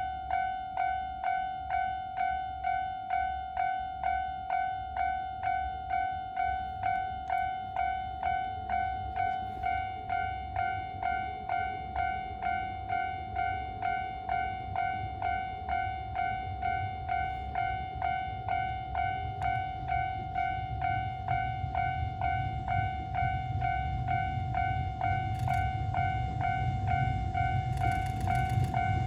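Japanese level-crossing electronic warning bell ringing steadily at about one and a half rings a second. Over the last several seconds the rumble of an approaching Keisei 3500-series train grows beneath it.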